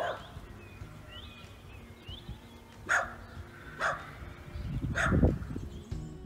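Outdoor field ambience: small birds chirping faintly, then three short, loud animal calls about a second apart, the last one over a low rumble.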